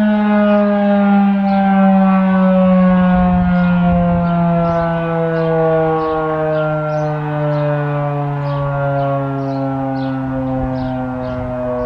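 Federal Electric Model 5 outdoor warning siren sounding a steady alert tone as a chord of two pitches, the pitch sliding slowly downward as the rotor loses speed. Wind rumbles on the microphone.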